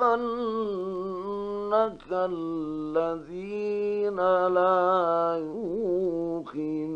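Male Quran reciter chanting in the melodic mujawwad style, from a 1956 radio recording. Long held notes step down in pitch, with short pauses for breath between phrases and a run of quick wavering ornaments near the end, as the surah draws to its close.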